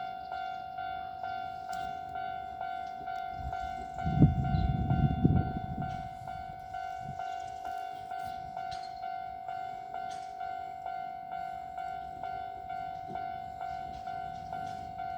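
Japanese level-crossing alarm bell ringing steadily at one pitch, about two strikes a second. About four seconds in, a Kintetsu 5200 series four-car express train rushes through the crossing, a loud rumble of wheels on rails lasting about two seconds, then the bell rings on alone.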